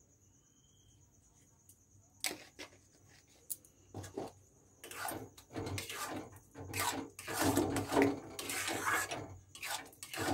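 Metal spatula stirring and scraping a thick, wet semolina mixture in a metal kadai. It is quiet at first; the scraping strokes start about two seconds in and become louder and nearly continuous from about five seconds.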